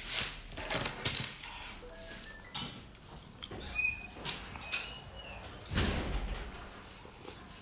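A person slurping noodles and spicy broth from a bowl, with wet chewing sounds between slurps; the loudest slurps come at the start and about six seconds in.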